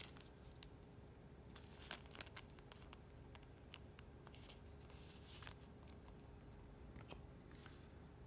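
Faint rustling and crinkling of trading cards and foil pack wrappers being handled, with a few small, sharp clicks; the loudest crinkle comes about five and a half seconds in.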